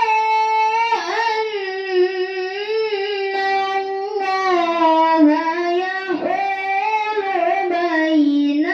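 A single high voice chanting a Qur'an verse in tilawah style, holding long melismatic notes with a wavering vibrato. The pitch falls in steps and climbs again near the end.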